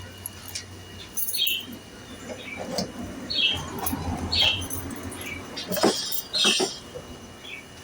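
A bird chirping several times, a second or two apart, over scattered clicks and knocks.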